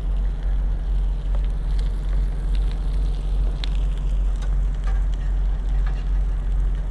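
Eggs, sausage and hash browns sizzling in oil on a Blackstone 17-inch griddle, a steady crackle with scattered sharp pops, over a constant low rumble.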